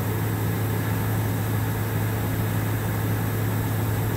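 Hydraulic power unit of an SHW CNC horizontal machining center running just after being switched on: a steady low electric hum over a constant whirring noise.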